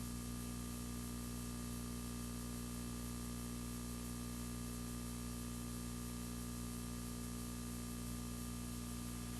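Faint steady electrical hum with a low buzzing stack of tones and a layer of hiss: the background noise of the recording, with nothing else audible.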